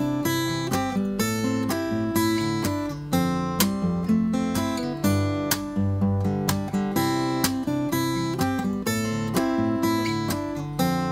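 Solo acoustic guitar played fingerstyle: a plucked melody over a bass line, each note struck sharply and left to ring, at a steady pulse.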